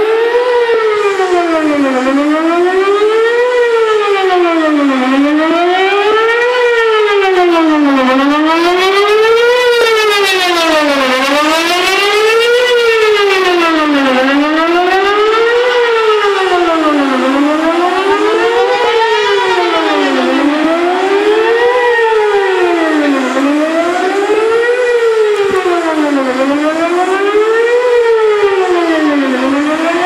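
Outdoor tornado warning siren wailing, its pitch rising and falling in a smooth, even cycle about every three seconds.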